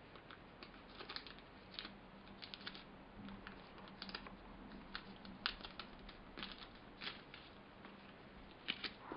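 Faint, irregular small clicks and crinkles of model kit contents being handled, over a faint steady low hum.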